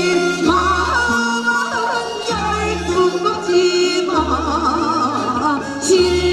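Korean folk song (minyo) sung by women into microphones, their voices wavering with heavy vibrato over an amplified accompaniment with a steady bass line that changes note every second or two.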